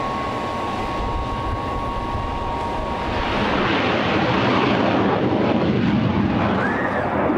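Saab J29 Tunnan's turbojet running on the ground with a steady whine. About three seconds in, the whine gives way to louder jet noise as the fighter makes its takeoff run.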